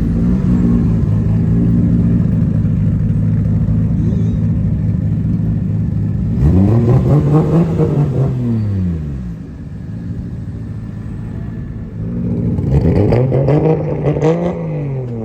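A car engine running steadily, then revved up and let fall back twice, each rev lasting about three seconds.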